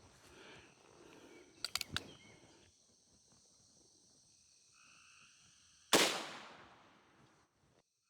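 A Ruger Single-Six .22 rimfire revolver fires a single shot about six seconds in, a sharp crack that dies away over a second or so. A few quick metallic clicks come a couple of seconds earlier.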